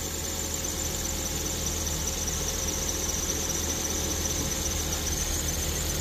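Ford Figo's Duratec petrol engine idling smoothly, its misfire cured by repair work in the cylinder head, over a steady low hum. A continuous high-pitched squeal comes from the accessory drive belt.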